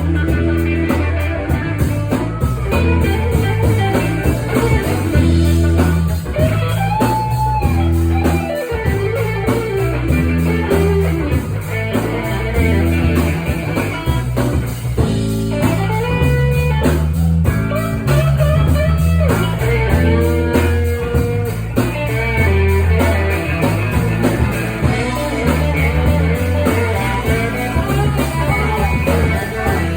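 Blues band playing: electric guitar lead with bent, gliding notes over a stepping bass line and a steady beat.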